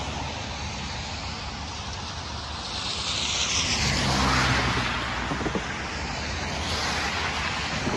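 Cars driving past on a rain-wet road, their tyres hissing on the water. One passes close about halfway through, so the hiss swells with its engine heard, then fades.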